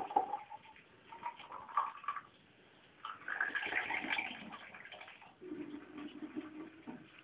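Water from a tap running and splashing in a washbasin as a small child plays with it, in uneven spells, most strongly around the middle.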